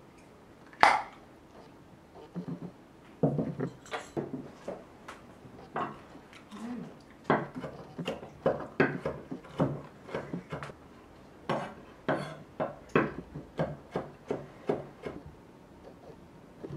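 Chef's knife mincing jalapeño on a wooden cutting board: a run of quick, irregular knocks of the blade on the wood, several a second, with one louder knock about a second in.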